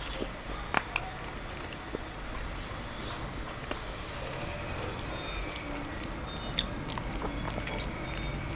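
Eating by hand: quiet chewing and the soft squish of fingers mixing rice and daal on a steel plate, with a few sharp clicks.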